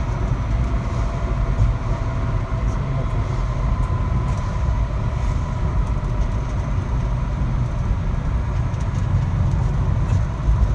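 A moving vehicle's steady low rumble, heard from on board, with a faint steady whine held above it.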